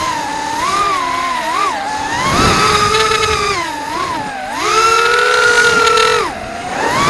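FPV racing quadcopter's brushless motors whining, the pitch rising and falling constantly with the throttle. The pitch holds high for about a second near the end, then drops sharply as the throttle is cut.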